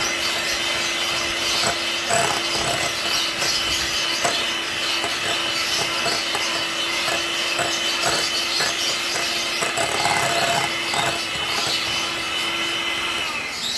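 Dalgona coffee mixture being beaten in a container, a steady scraping whir that stops shortly before the end. The mix is thickening into a sticky foam.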